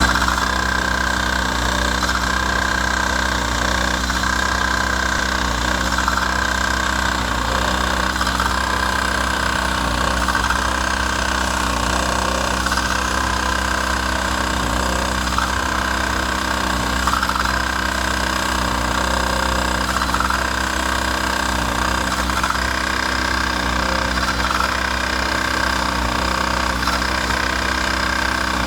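An engine running steadily at a constant speed: a continuous whine over a low hum, unchanging throughout.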